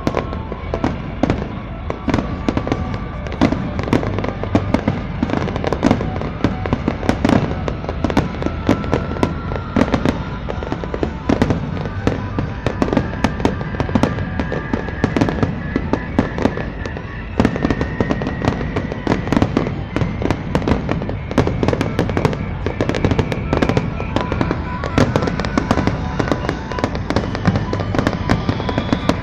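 Aerial firework shells bursting in rapid, dense succession, bang after bang with crackling. Music plays underneath, with a long tone that slowly rises in pitch.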